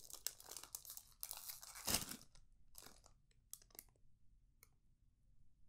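Flamin' Hot Cheetos snack bag crinkling and tearing as it is pinched and pulled open by hand. Dense crackling rustles for about three seconds, then a few scattered crinkles that die away.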